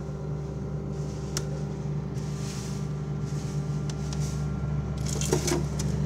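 Samsung inverter refrigerator running with a steady low hum, cooling normally again after its defrost fault was fixed. A sharp click a little over a second in and a few knocks near the end.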